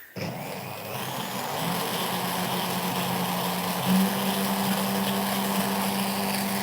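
Electric blender running steadily, whipping egg yolks, lemon juice, mustard and oil into mayonnaise that is still thin. Its pitch steps up slightly with a brief louder moment about four seconds in.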